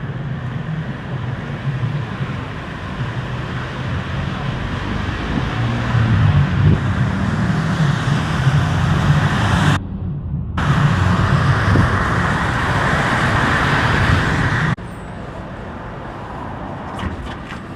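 City street ambience with steady road traffic noise that builds over several seconds. It drops out briefly partway through, then cuts suddenly to a quieter street background near the end.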